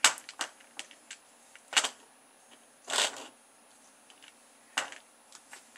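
Light plastic clicks and short rattles from a small toy car chassis with a rubber band tied to its back axle as it is handled and its wheels are turned, with a longer rattle about three seconds in.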